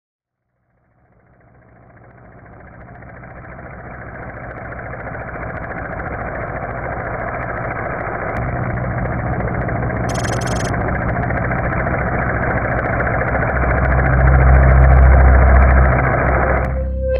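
A muffled, rumbling wash of noise fades in and slowly builds, with a deep low hum growing loudest near the end, then cuts off suddenly just before the music starts. A brief high shimmer comes about ten seconds in. It is a cinematic sound-design drone swelling under opening titles.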